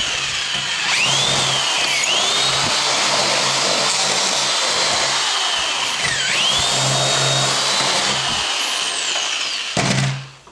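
A cordless drill bores into the plastic case of a Suntone cassette recorder, the bit grinding through plastic and parts. The motor's whine dips in pitch and recovers twice as the bit bites. The drilling stops near the end, followed by a few knocks.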